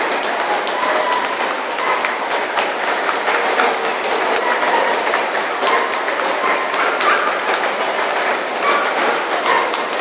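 Steady background din of a crowd in a large exhibition hall: many distant voices blended together, with frequent small clicks and taps throughout.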